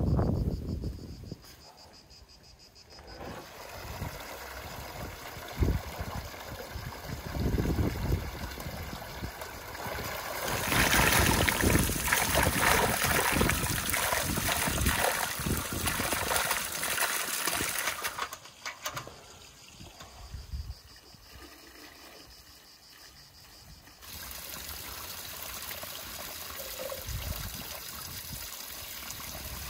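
Blackberries poured from a metal bucket into a tub of water, splashing loudly for about seven seconds near the middle. Later a steady stream of water runs from a spout into the tub while a hand swishes through the water.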